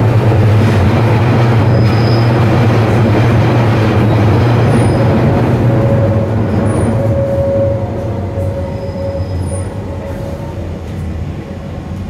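A 1992 Tube Stock train running through a deep-level tunnel, heard from inside the carriage: a loud steady rumble of wheels and running gear that eases off about seven seconds in. A steady whine comes in midway, with a few faint high wheel squeals.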